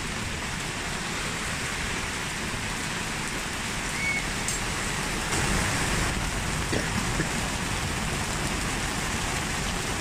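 Heavy rain pouring onto a wet paved street and parked cars, a steady dense hiss of drops.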